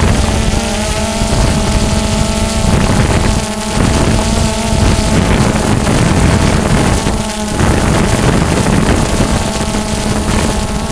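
Small quadcopter's electric motors and propellers buzzing steadily, heard from its onboard camera, with wind rumbling on the microphone that eases briefly twice.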